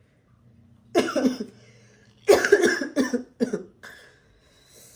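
A woman coughing: one cough about a second in, then a run of three more in quick succession, from someone who says she is still a little under the weather.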